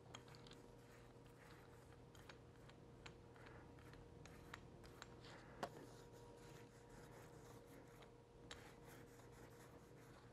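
Faint rubbing and light ticks of a small paint roller spreading wet contact cement over wooden blocks, with one sharper tick about five and a half seconds in.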